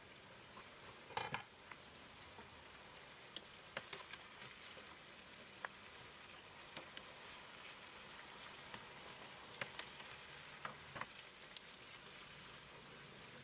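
Ground beef and chopped onions frying in a pan with a faint, steady sizzle, broken by scattered short scrapes and taps of a spatula stirring them against the pan.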